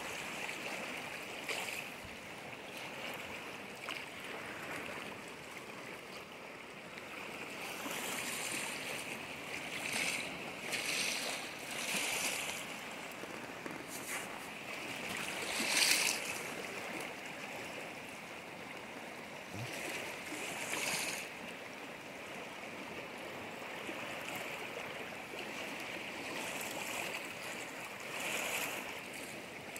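Small waves washing on the shore: a steady wash that swells every few seconds.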